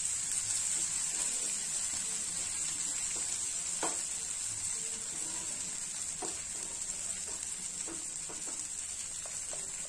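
Sprouted green gram dosa sizzling steadily on a hot dosa pan (tawa) just after being flipped onto its raw side, with a few faint crackles. The sizzle eases slightly toward the end.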